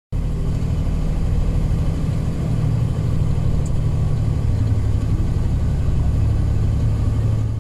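Magirus Deutz 170D11 truck's air-cooled diesel engine running steadily under way, heard from inside the cab as a low, even drone.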